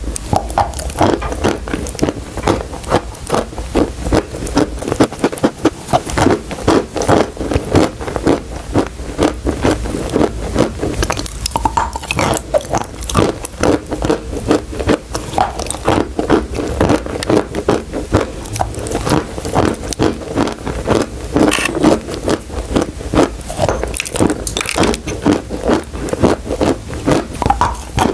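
Close-miked biting and chewing of crunchy chalk and dried clay: a continuous run of rapid crisp crunches and crackles.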